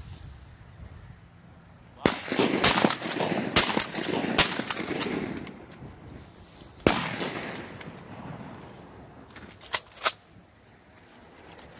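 Duck hunters' shotguns firing: a quick string of about five shots starting about two seconds in, one more shot at about seven seconds, and two quick, sharper reports near the end, each shot ringing out briefly.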